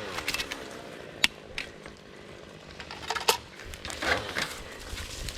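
A few scattered sharp clicks and knocks, the loudest about a second in and again past three seconds.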